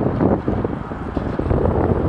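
Wind buffeting a microphone during a bicycle ride, a low, uneven rumble that swells and dips.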